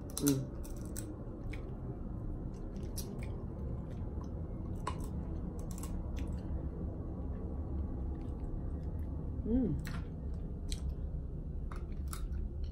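Close-up chewing and mouth sounds of people eating boiled crab and lobster, with scattered small clicks and cracks of shell being pulled apart, over a steady low hum. Two brief voiced sounds come right at the start and about ten seconds in.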